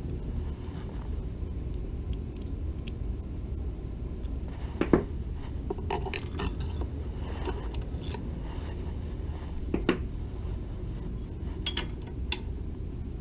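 Metal lathe parts and hand tools being handled, clinking and knocking against each other in about seven separate hits. The loudest knock comes about five seconds in, with a steady low hum underneath.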